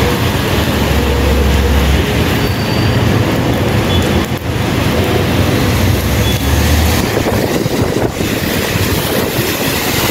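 City traffic on a rain-soaked road: a steady hiss of tyres and rain on wet asphalt over a low rumble of engines, the rumble swelling twice.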